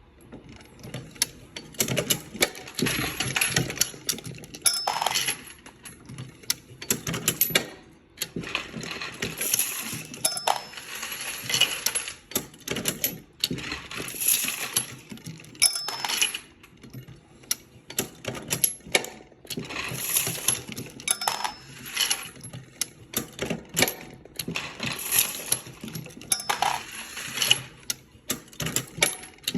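Dillon progressive reloading press cycling through 9mm pistol rounds: a clattering run of metallic clicks and brass clinks about every five to six seconds, each stroke with a brief high metallic ping.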